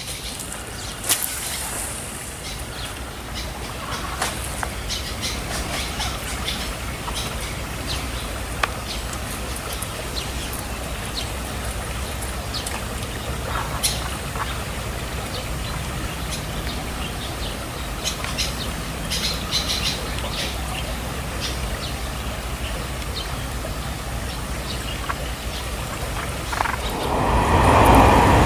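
Birds chirping over a steady low rumble of outdoor ambience, with scattered short high chirps and clicks. Near the end a louder, broader noise swells up.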